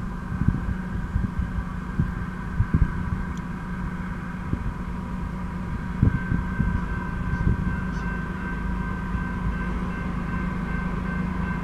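Railroad crossing warning bell ringing steadily as the crossing signal activates, with low thumps of wind buffeting the microphone.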